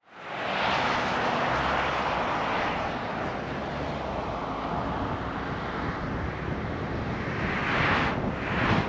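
Car driving at highway speed: steady tyre and wind noise that fades in at the start. Near the end an oncoming car swishes past.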